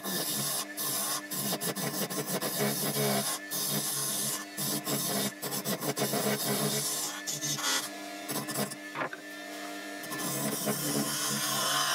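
A small electric power tool running with a steady motor hum, while wood is scraped and rasped against it in uneven strokes.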